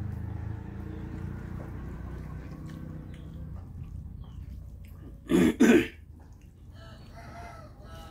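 A man coughs twice in quick succession, two short loud coughs, over a low steady hum.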